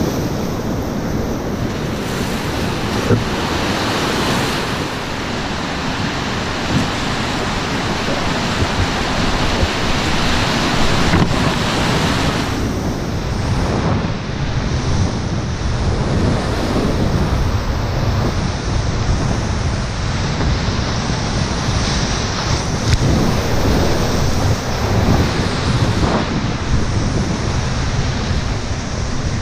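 Whitewater rapids rushing loud and steady around a small inflatable cataraft as it runs down through them, with wind noise on the microphone.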